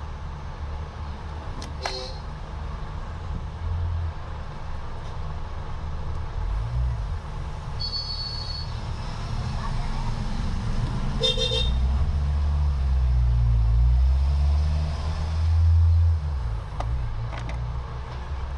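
Road traffic: the low rumble of a motor vehicle builds and is loudest about two-thirds of the way through, with a few short, high horn toots around the middle.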